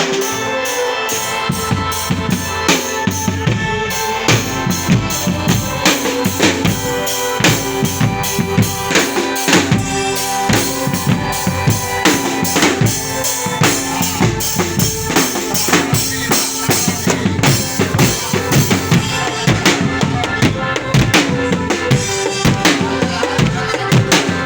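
Loud percussion-led music: drums struck in a quick, steady rhythm with held melodic tones over them.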